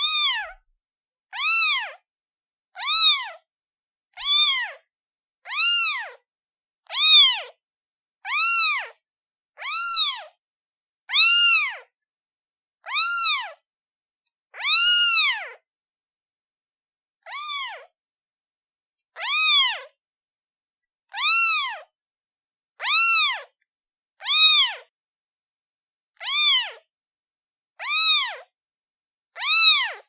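Newborn kitten, a day old, meowing for its mother: a steady series of high, thin meows, each rising and falling in pitch. They come about one every second and a half, with a short pause midway.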